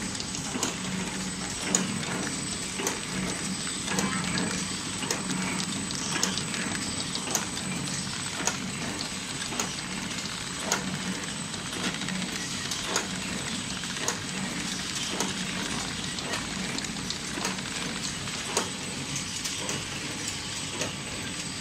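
Horizontal pillow-bag flow-wrap packing machine running steadily, with a sharp mechanical click about once a second over a constant hum and a thin high whine.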